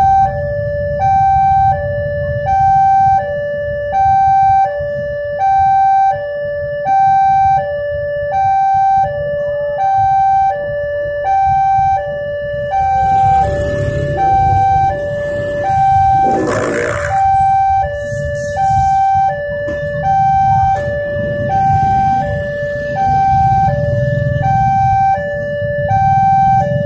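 Electronic warning alarm of a railway level crossing sounding its two-tone ding-dong, a higher and a lower tone alternating about once a second, signalling that a train is coming with the barriers down. Waiting motorcycles and cars idle underneath, with a brief hissing burst about sixteen seconds in.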